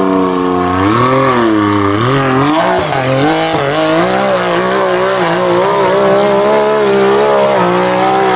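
Off-road vehicle's engine running hard under throttle. Its pitch dips and climbs back several times in the first few seconds, then holds fairly steady with small wavers.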